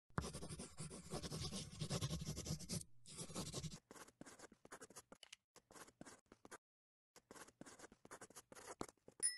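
A pen scratching out handwriting: a continuous scrawl for about three seconds, then a run of short separate strokes. A brief high ding comes near the end.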